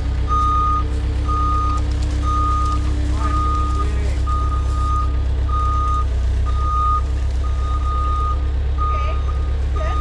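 Skid steer's reversing alarm beeping about once a second, each beep about half a second long, over the steady low rumble of its engine running.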